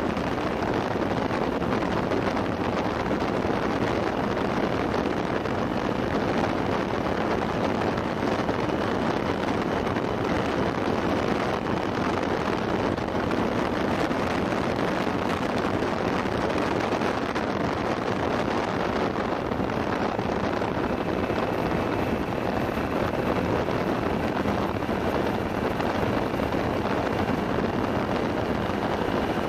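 Steady rush of wind over the microphone of a motorcycle-mounted action camera riding at about 35 to 45 mph, with the motorcycle running underneath.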